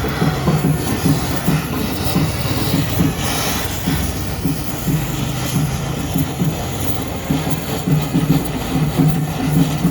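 Electric arc welding on a motorcycle: a steady crackling hiss over a low, uneven buzz.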